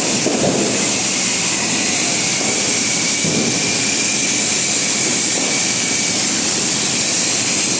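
Ground fountain firework spraying jets of sparks with a steady, loud hissing rush.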